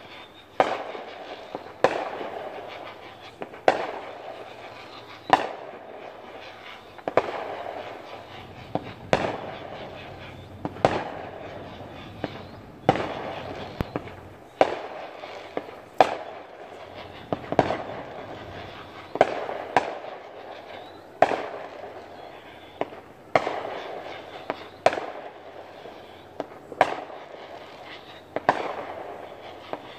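Aerial fireworks bursting: a sharp bang about every second and a half to two seconds, each trailing off before the next.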